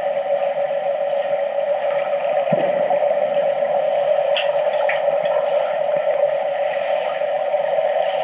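Steady, even mechanical hum picked up underwater in a swimming pool, with a few faint clicks about halfway through.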